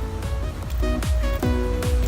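Background music with a heavy, steady electronic beat and short synth notes.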